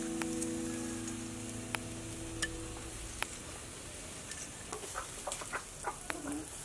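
Chickens clucking repeatedly from about four and a half seconds in. Before that, background music fades out and there are a few sharp clicks.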